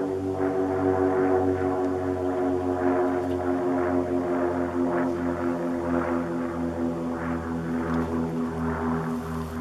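Engine droning steadily, its pitch sinking slowly, with a throb a few times a second.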